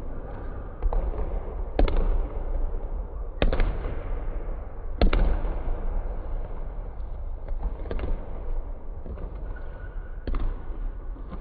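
Basketballs bouncing on a hardwood gym floor and hitting the rim and backboard: a string of sharp bangs that echo briefly through the gym, the loudest about two, three and a half and five seconds in.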